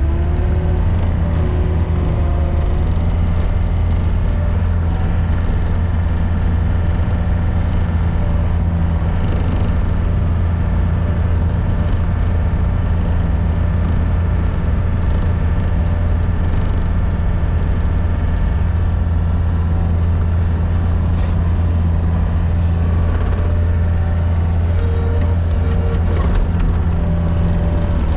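Engine of a Gehl RT65 tracked skid steer running steadily at a constant speed, a continuous low drone.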